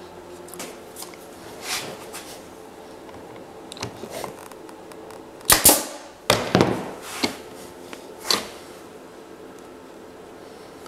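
Pneumatic brad nailer firing as oak trim is nailed to a plywood shelf edge: several sharp shots about halfway through, a few in quick succession, then one more a second or so later.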